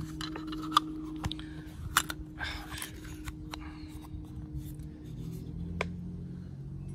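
Clicks and light crackles of a thin clear plastic blister tray and a small plastic accessory box being handled, scattered and irregular. A low steady hum lies under them.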